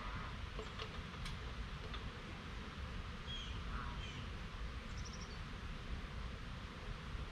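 Outdoor background: a steady low rumble with a few faint, quick bird chirps and some light clicks.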